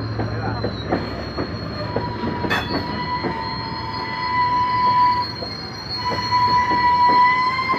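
Freight train hopper cars rolling slowly past with clacks of wheels over rail joints. About two seconds in, a steady high-pitched squeal from the steel wheels sets in and holds.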